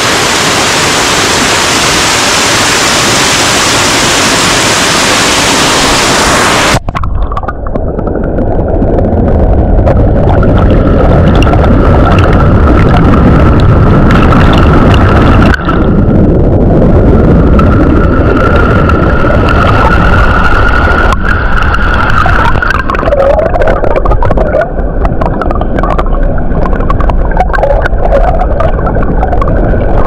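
Small waterfall's loud, steady rushing roar. About seven seconds in it changes abruptly to a deeper, rumbling rush of stream water close by, which breaks off and resumes a couple more times.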